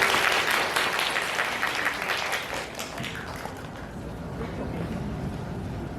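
Audience applauding, the clapping thinning out and dying away over the first three seconds into room noise.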